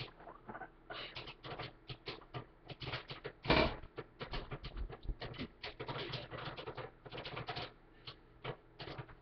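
Popcorn kernels popping: rapid, irregular pops, several a second, with one louder knock about three and a half seconds in.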